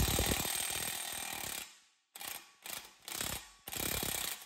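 DeWalt 20V MAX XR cordless impact wrench hammering on a 32 mm front axle nut to loosen it: one long run of rapid impacts, then four shorter bursts.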